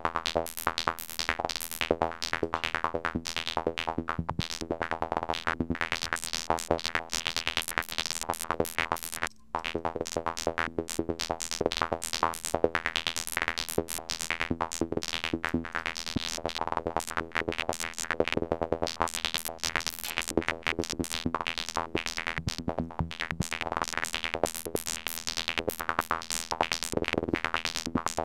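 Looping psytrance-style synth sequence from the Serum soft synth over a drum-machine kick: a rapid stream of short notes whose filter is stepped by LFO modulation. It cuts out for a moment about nine seconds in.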